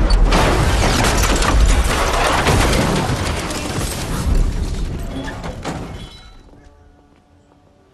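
A blown-up car crashing down onto its side as film sound effects: a loud rumble with metal crashing and glass shattering, and several heavier impacts. It dies away about six seconds in.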